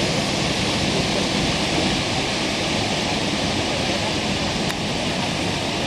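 Steady rushing roar of a large waterfall, Tegenungan waterfall, heavy with water after a night of storm rain.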